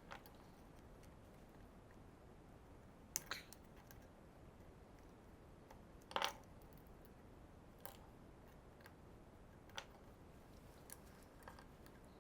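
Small channel-lock pliers clicking and scraping against the thin steel tabs of a toolbox latch as they are gripped and bent up. There are a handful of sharp, scattered clicks over near-silent room tone, with the loudest about six seconds in.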